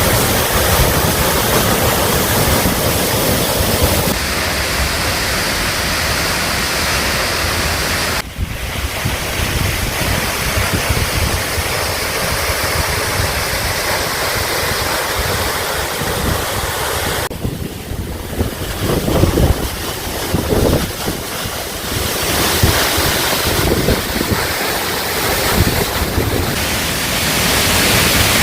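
A waterfall pouring, a loud steady rush of water whose tone shifts abruptly several times. Wind buffets the microphone in places, most around the middle.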